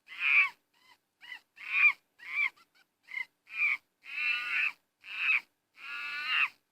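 Monkey calling: a rapid run of about ten screechy calls, most short, a few longer and drawn out.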